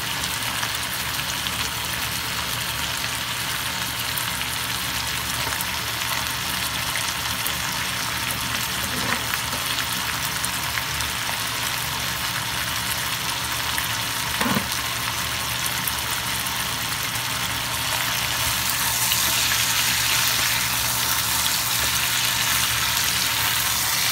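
Chicken pieces sizzling as they sauté in a nonstick pan, with a couple of faint spatula knocks as they are turned. The sizzle grows louder about three-quarters of the way through.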